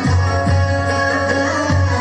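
Tribal fusion belly dance music in a Middle Eastern style: many held droning tones over deep, recurring drum beats.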